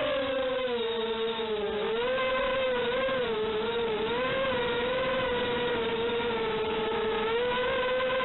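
Electric motor of an FPV model aircraft whining in flight, its pitch wavering up and down with the throttle.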